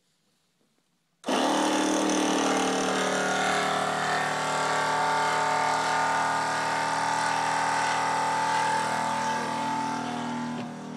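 A motor switches on abruptly about a second in and runs steadily with a steady whine, easing off slightly near the end.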